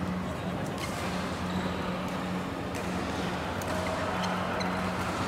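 Badminton play in a large indoor hall: scattered sharp racket hits on shuttlecocks and footsteps on the court over a steady hum.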